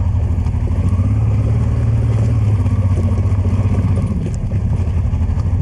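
Motorcycle engine running steadily at low speed, a deep even drone, as the bike rolls over loose gravel and rock.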